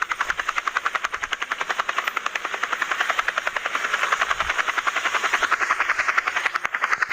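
Helicopter rotor chopping steadily, a rapid, even beat of about nine pulses a second.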